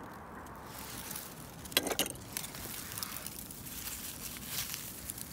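A hand rustling through long grass, with soft scattered rustles and clicks over faint outdoor hiss; the loudest rustle comes about two seconds in.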